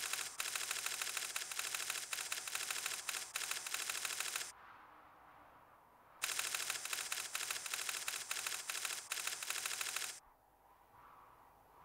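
Rapid typewriter-like clatter of text being typed out on a computer terminal, in two runs of about four seconds each with a short pause between.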